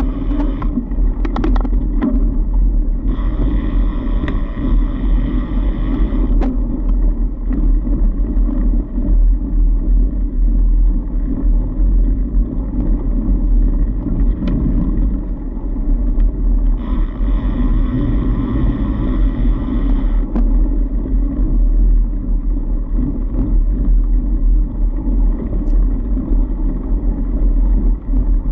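Fat bike rolling along a snowy trail: a steady, loud rumble of tyre noise and wind on the camera microphone, with a few sharp clicks near the start. A higher buzzing layer comes in twice, each time for about three seconds.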